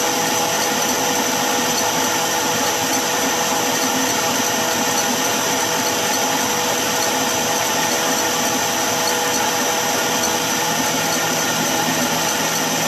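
Stand mixer running steadily, its whisk beating egg whites in a stainless steel bowl. The whites are still at the foamy stage, not yet whipped to peaks.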